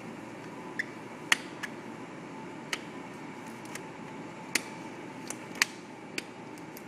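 Latex exam gloves being handled and pulled snug on the hands: scattered sharp snaps and clicks, about eight in all, over a steady background hum.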